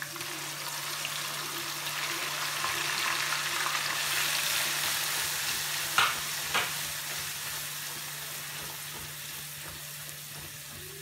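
Onion, ginger and garlic paste sizzling in hot mustard oil in a kadai as it is stirred with a silicone spatula; the sizzle swells a few seconds in, then slowly dies down. Two sharp knocks against the pan come about six seconds in.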